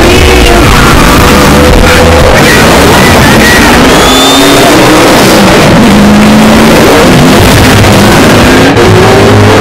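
Lightning McQueen's race-car engine revving, its pitch rising and falling and then holding steady for a while, heavily bass-boosted and distorted by constant clipping.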